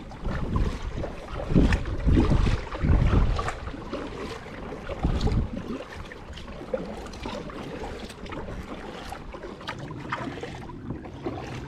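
Kayak paddling on calm water: paddle splashes and dripping, with gusts of wind buffeting the microphone in the first few seconds and again briefly around five seconds in.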